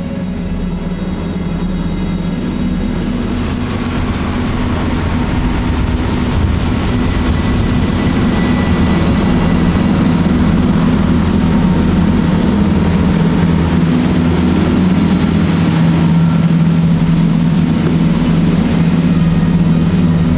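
Passenger boat's engines running at speed: a steady low drone under a constant rush of water and wind, growing a little louder over the first few seconds.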